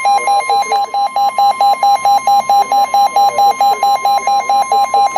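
Weather radio receiver's alert alarm beeping rapidly and evenly, about five loud beeps a second, sounding for an incoming severe thunderstorm warning.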